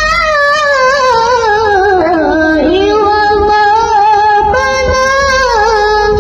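A single young voice chanting Quranic recitation (tilawah) in a melodic, drawn-out style, holding long ornamented notes; the melody slides down about two seconds in and settles on a lower held note.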